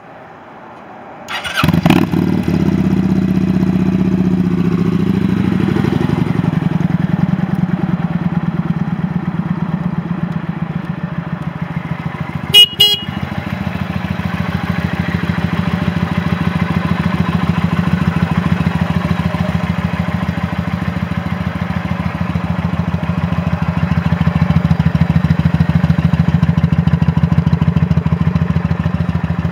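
A 2009 Kawasaki Vulcan Custom's V-twin engine starts about a second and a half in, runs a little fast at first, then settles into a steady, even idle. About twelve and a half seconds in, two short horn beeps are the loudest sound.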